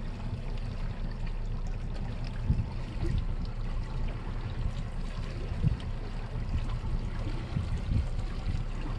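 Water lapping and trickling against a boat's hull, over a steady, uneven low rumble.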